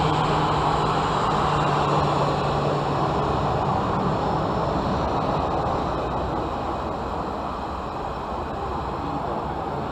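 Aircraft engine noise: a steady rumble with a low hum that fades out about four seconds in, the whole slowly getting quieter as the aircraft moves away.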